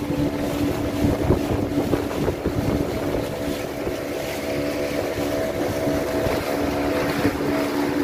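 Motorized outrigger fishing boat's engine running steadily underway, a constant droning pitch, with water rushing past the hull and wind buffeting the microphone.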